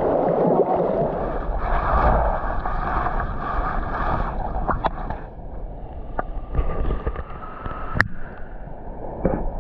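Turbulent water churning and rumbling below a small waterfall: a steady rush with scattered small pops, and a single sharp click about eight seconds in.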